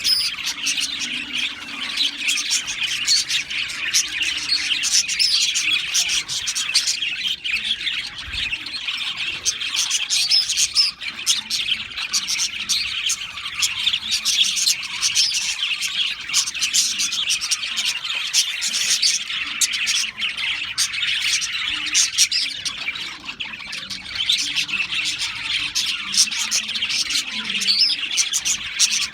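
Many budgerigars chirping at once in a dense, continuous chatter of overlapping calls.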